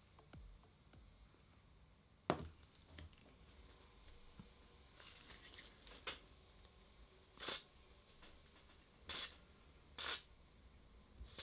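A metal plane knocks once on a hard floor as it is set down, then an aerosol can sprays penetrating oil through a thin straw nozzle onto a rusted screw in several short hissing bursts a second or two apart.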